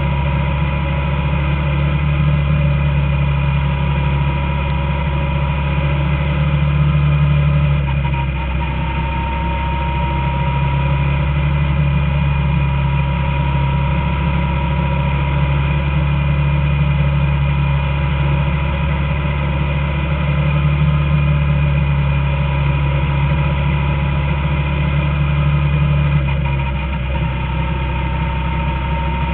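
Small open-wheel race car's engine heard from on board, running steadily at speed, its revs dipping briefly twice, about eight seconds in and near the end.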